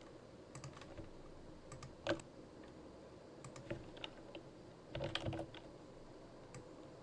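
Scattered clicks from a computer keyboard and mouse. The loudest single click comes about two seconds in, and a quick run of several clicks comes about five seconds in.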